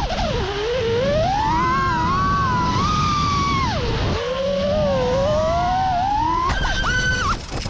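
Brushless motors of a 5-inch FPV quadcopter whining, the pitch rising and falling with the throttle as it is flown hard. Near the end the whine changes abruptly and drops away.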